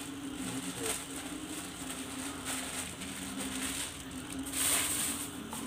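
Plastic bag rustling and crinkling as bait ingredients are handled and emptied, with a louder rustle about four and a half seconds in, over a steady low hum.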